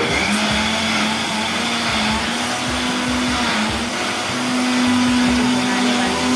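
Electric mixer grinder (mixie) running at full speed, grinding soaked chana dal into a coarse paste. Its motor hum dips briefly a couple of times as the load shifts.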